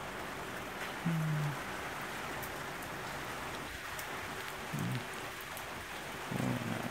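Steady rain falling and pattering on wet surfaces. A person's voice hums briefly about a second in and a couple of times near the end.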